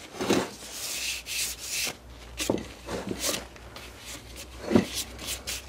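Sandpaper rubbed by hand over a metal engine casting, several scraping strokes in the first two seconds, then lighter handling rubs with a few short knocks.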